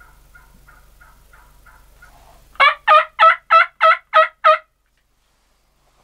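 Wild turkey yelping: a run of seven loud, evenly spaced yelps, about three and a half a second, starting about two and a half seconds in, after a stretch of fainter, quicker calling.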